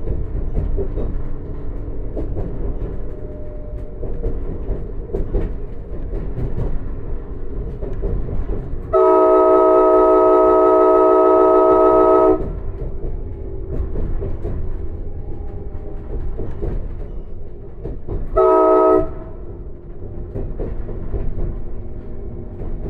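Alstom Coradia iLint hydrogen train running at low speed, a steady rumble of wheels on rail. About nine seconds in, its multi-chime air horn, which the uploader takes for a K5LA, sounds one long blast of about three seconds. Some six seconds later it gives one short blast, part of a horn signal for a level crossing.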